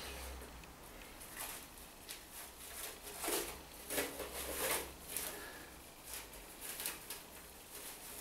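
Cling film crinkling and crackling in irregular soft bursts as fingers pick at the roll to find its loose edge.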